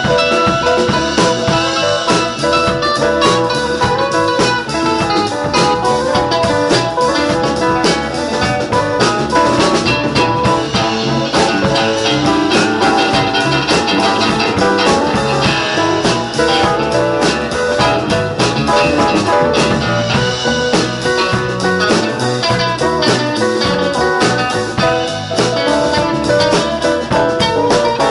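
Live band of electric guitars, electric bass, drum kit and keyboard playing a blues tune, the guitars to the fore.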